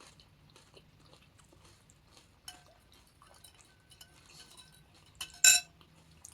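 Quiet chewing and small mouth clicks of someone eating crisp panipuri, with one loud, sharp click about five and a half seconds in.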